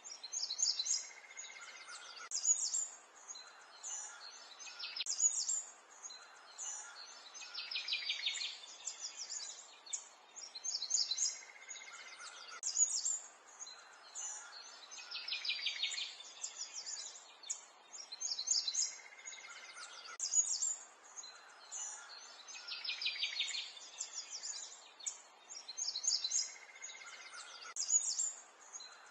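Birdsong: high chirps and rapid trills over a faint hiss. The same pattern of calls recurs about every seven to eight seconds, like a looped recording.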